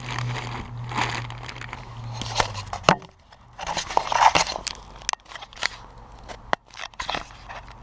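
A package being worked open by hand: plastic packaging crinkling and crunching, with sharp clicks and scrapes as it is pulled at. A low hum underneath stops about three seconds in.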